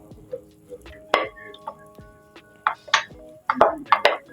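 Rolling pin knocking and clattering on the work surface as naan dough is rolled out, a handful of sharp knocks, the last few coming close together, over soft background music.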